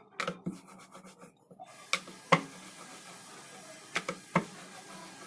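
Rolling pin rolling out dough on a floured board: a soft, steady rubbing, broken by a few short sharp knocks.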